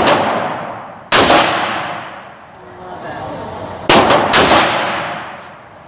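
AR-15-style rifle in .300 Blackout firing three shots: one about a second in, then two close together near four seconds. Each shot rings out in the long echo of an indoor shooting range.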